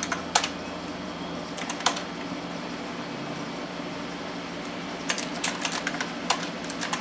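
Keystrokes on a computer keyboard typing DOS commands: a few single key presses, then a quick run of typing about five seconds in, over a steady low hum.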